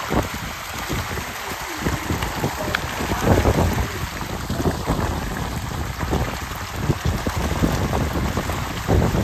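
A dense mass of pond fish thrashing and splashing at the surface as they take feed: a continuous patter of many small overlapping splashes, a little louder from about three seconds in.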